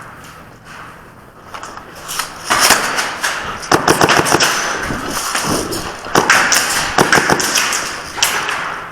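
Airsoft guns firing in several quick bursts of sharp cracks, with BB hits and clatter, starting a couple of seconds in.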